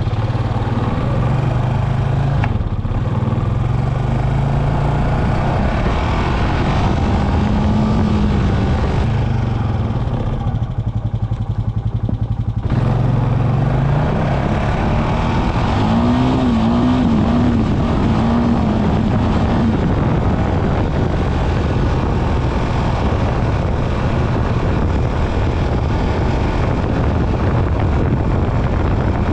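Off-road vehicle engine running steadily with the throttle varying. The revs ease off for a couple of seconds about ten seconds in, then pick up again.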